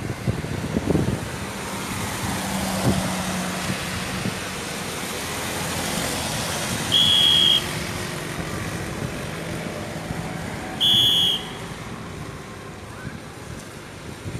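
Road traffic passing on a wet road: tyre hiss and engine hum from motorcycles and pickups. Twice in the second half, about four seconds apart, a short, high, steady blast of a traffic whistle cuts through, louder than the traffic.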